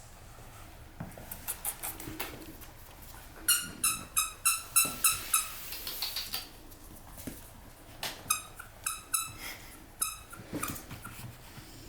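Short high-pitched squeaks during puppy play, in two quick runs of several a second, with light clicks and knocks in between.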